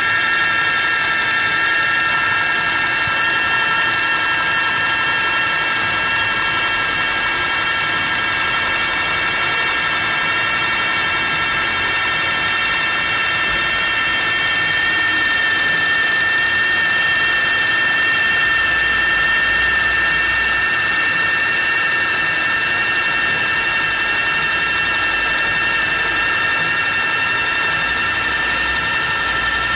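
Large computerized welding machine running steadily, a constant high whine made of several steady tones over an even hiss.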